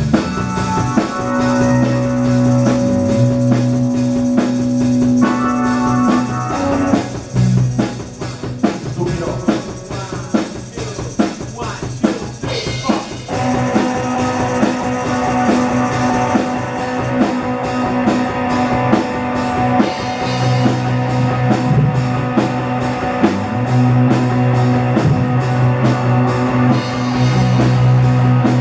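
A rock band playing two electric guitars and a drum kit, with held guitar chords over a steady drum beat. The playing turns fuller and louder about 13 seconds in.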